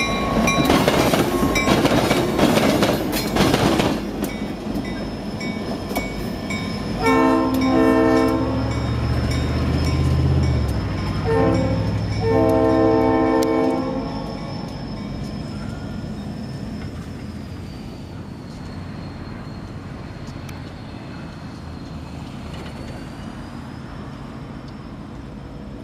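Norfolk Southern diesel locomotives passing close: a loud clatter of wheels over the rail crossing for the first few seconds. About seven seconds in, the locomotive horn sounds two long blasts, a short and a long, the grade-crossing signal, over the diesel engine's rumble. The train noise then fades as it moves away.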